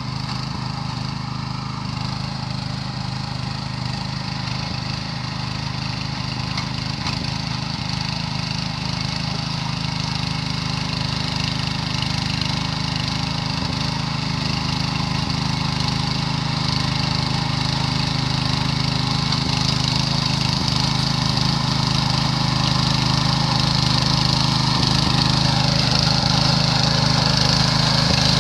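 Small petrol engine of a motor cultivator (plough machine) running steadily, growing gradually louder.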